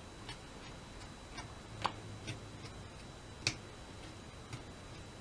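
Faint, irregular light taps of a graphite pencil on paper, about seven in all at uneven spacing, over a low room hum.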